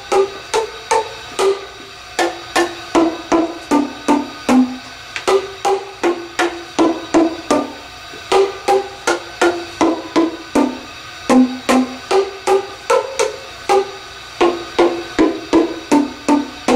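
A tune played on tuned sound tubes, each struck to give one short pitched note. The strikes come two or three a second with brief pauses, stepping between a few different pitches.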